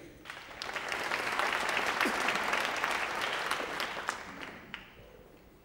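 Audience applauding, swelling quickly after the start and dying away about five seconds in.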